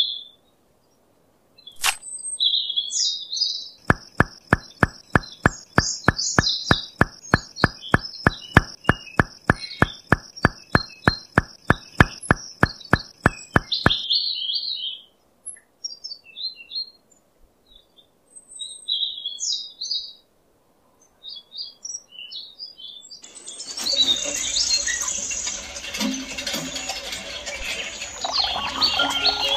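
Birds chirping, joined early on by an even ticking of about three clicks a second that runs for some ten seconds and then stops. About two-thirds of the way through, water starts gushing from a toy hand pump and splashing into a small cement pool.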